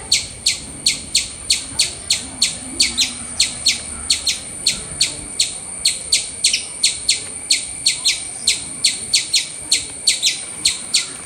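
Indian palm squirrel calling: a fast, even series of sharp, high chirps, about three to four a second, each a quick downward sweep.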